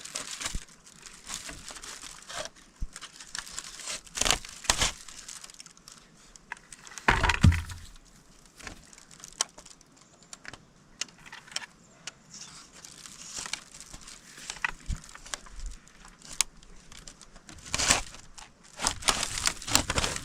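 Irregular rustling and crinkling with scattered clicks and knocks, as of materials being handled; a louder thump about seven seconds in and a longer stretch of louder rustling near the end.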